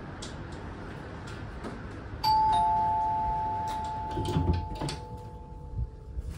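Two-note ding-dong door chime of a hotel room, a higher note followed by a lower one, both ringing on and fading slowly: the sign that room service has arrived with breakfast. A few soft thumps follow.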